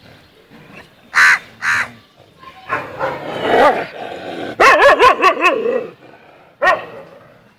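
Stray dogs barking and yelping close by. Two short barks come about a second in, then a quick run of yelps and whines around the middle, and one more bark near the end.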